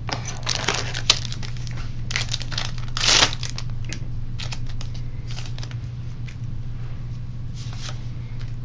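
Foil booster-pack wrappers crinkling and rustling as a pack is handled, with a louder, brief tearing sound about three seconds in as a pack is ripped open. A steady low hum lies underneath.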